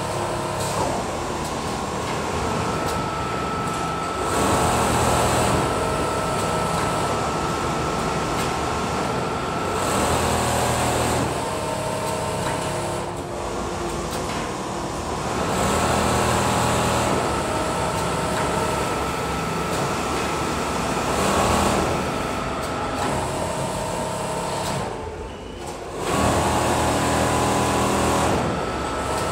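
Richpeace automatic sewing machines running: a steady mechanical din with a motor whine. It swells and eases every few seconds as stitching cycles start and stop, with a brief lull about 25 seconds in.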